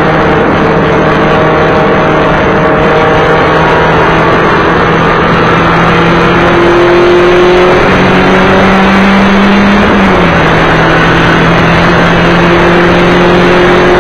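Race car engine running loud, heard from inside its stripped, roll-caged cabin at a fairly steady pitch. The pitch steps up about eight seconds in and drops back about two seconds later, as the driver changes gear.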